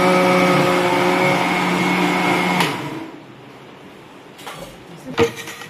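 Countertop blender motor running at a steady pitch while puréeing peeled tomatoes, then switched off about two and a half seconds in. After it, a faint click and a sharp knock as the jar is handled.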